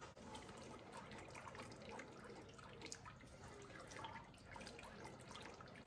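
Faint wet squelching and soft irregular clicks of a thick cream-and-Parmesan sauce being stirred with a spaghetti spoon in a pan as the sauce thickens.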